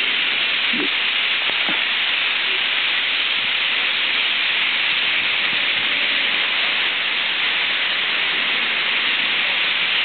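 A huge flock of European starlings chattering all at once, a dense, steady hiss of calls in which no single voice stands out.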